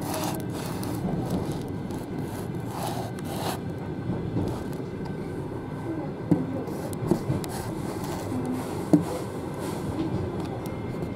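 Passenger coach rolling slowly out of a station, heard from inside the rear vestibule: a steady rumble of the wheels on the rails, with a few sharp knocks and creaks from the coach about 6, 7 and 9 seconds in.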